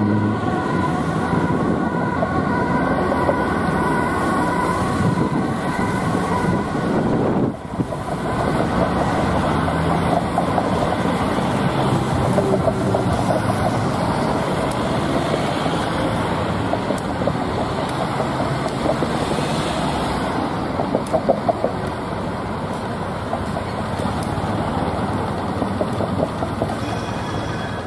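Ambulance siren switching back and forth between two pitches for the first several seconds. After a sudden break at about a third of the way in, dense city traffic noise follows: engines and tyres of slow-moving cars and vans.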